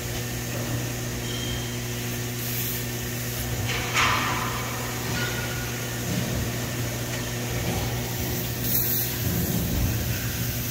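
Trumpf TruMatic L3030 CO2 laser cutting machine running while cutting sheet metal: a steady hum with an even hiss, and a few brief hissing bursts, the loudest about four seconds in.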